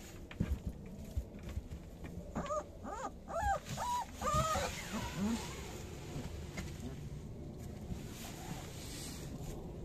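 Three-week-old puppies whining and squealing: a run of short, high, rising-and-falling whimpers about two seconds in. Some dull thumps come before them.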